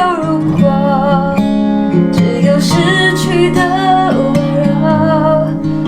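Acoustic guitar playing chords under a singer who holds long, wavering notes.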